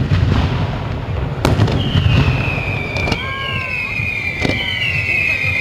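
Fireworks going off over the sea: three sharp bangs, and from about two seconds in a high whistle that slowly falls in pitch while a spark fountain sprays up from the water.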